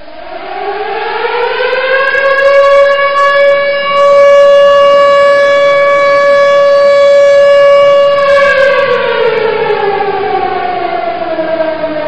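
A loud siren winds up in pitch over about two seconds, holds one steady tone for about six seconds, then slowly winds down again near the end.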